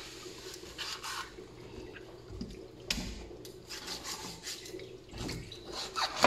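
Large knife cutting a whole raw chicken in two on a plastic cutting board: rubbing, scraping sounds and irregular knocks and taps of the blade and chicken on the board, the loudest knock near the end.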